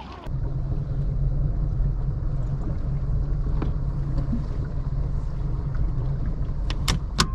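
Motorboat engine running steadily with a low, even hum. A few sharp clicks sound near the end.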